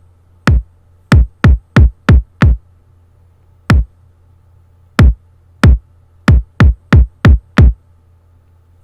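Hip-hop kick drum sample, already carrying a little distortion, playing an uneven, syncopated pattern of about fourteen deep hits, run through a dbx 160A compressor.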